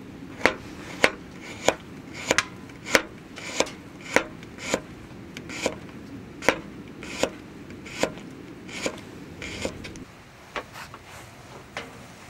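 Knife chopping on a cutting board in slow, even strokes, about one every two-thirds of a second, becoming softer and sparser after about ten seconds.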